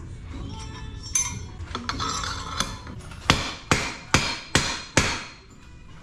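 Five sharp, ringing metal-on-metal hammer strikes, about two or three a second, driving a tubular crown race setter down a BMX fork's steerer tube to seat the headset crown race. Lighter clinks of metal parts being handled come first.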